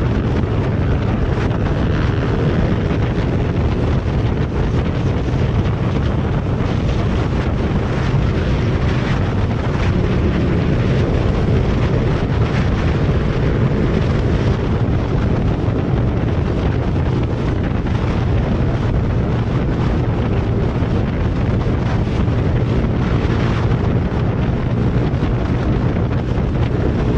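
Wind buffeting a motorcycle-mounted microphone at road speed, with the motorcycle's engine running steadily underneath.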